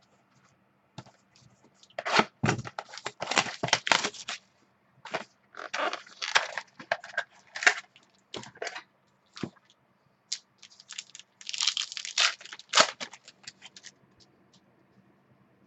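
A trading card pack's wrapper being torn open and the cards inside handled and shuffled: irregular crinkling and tearing, in several busy spells with short pauses between.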